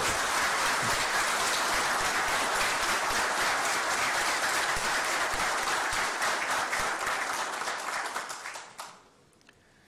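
Audience applauding: dense, steady clapping from a crowd that dies away near the end.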